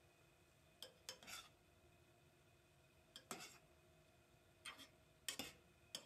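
A spatula stirring soybeans, fried tofu and vegetables in a stainless steel pot, giving soft scrapes and knocks against the pot in short clusters: about a second in, around three and a half seconds, and around five seconds.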